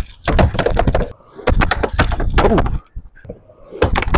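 Skateboard on a wooden mini ramp: wheels rumbling across the wood and the board clacking and slapping down hard as blunt kickflip attempts are thrown. The sound comes in three separate bursts.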